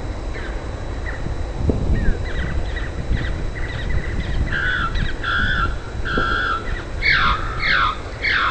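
Birds calling: repeated short calls that grow louder about halfway through, ending in a run of loud downward-sliding calls. A steady low rumble runs underneath.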